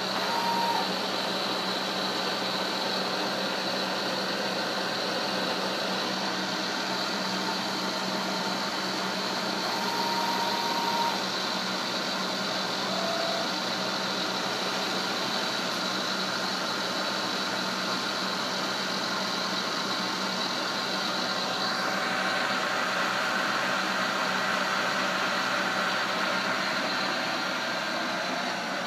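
Turret milling machine running steadily, a low hum under a high whine. About 22 s in the whine drops to a lower pitch.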